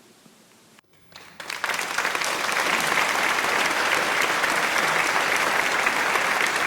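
Applause from a crowd, starting suddenly about a second and a half in after a brief silence, then holding dense and steady.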